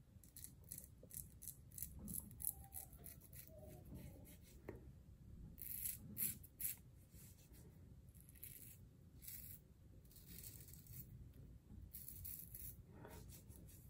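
Above the Tie Atlas H2 safety razor scraping through lathered beard stubble in a run of short, faint strokes.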